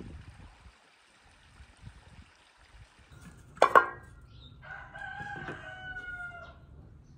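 A short, loud cry about halfway through, followed by a rooster's crow ending in one long held note of about two seconds.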